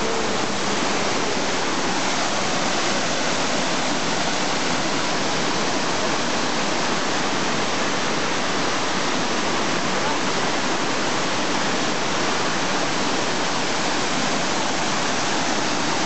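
Mountain waterfall pouring down a rock face into a pool: a steady, even rush of water.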